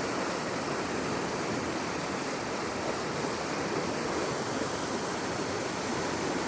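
Steady rush of flowing floodwater, an even hiss-like noise with no distinct strikes.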